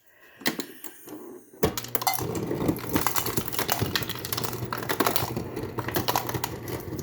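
A few light clicks, then about a second and a half in a sudden, continuous clatter of ice cubes over a steady motor hum, typical of a refrigerator door ice dispenser running.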